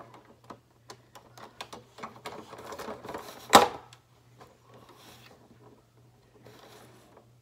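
Toy packaging being worked open by hand: a run of small clicks, crinkles and rustles from plastic and cardboard, with one sharp loud snap about three and a half seconds in.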